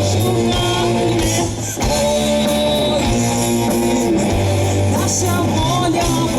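Live rock band playing, with electric guitar and bass guitar. There is a short break in the sound about a second and a half in, then the band plays on.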